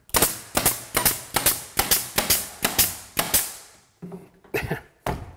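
DeWALT pneumatic nailer firing nails in quick succession, about four sharp shots a second, into the door jamb. A few softer knocks follow near the end.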